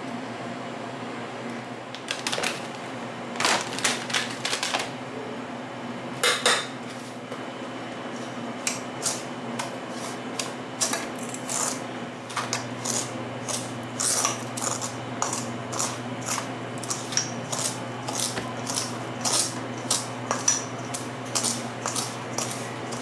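Metal spoon stirring granulated sugar in a stainless steel mixing bowl, clinking and scraping against the bowl in irregular clusters at first, then about twice a second, over a steady low hum.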